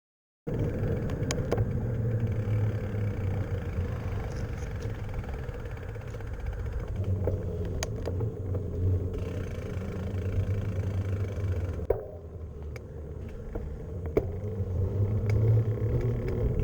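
A machine-tool motor running steadily with a low hum, with scattered light clicks. The sound changes abruptly about twelve seconds in.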